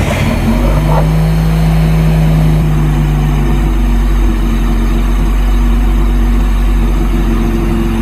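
1992 Honda Civic's 1.5-litre four-cylinder engine running steadily just after starting, heard from inside the cabin. It is the first start on a newly swapped wiring harness, and it is running fine.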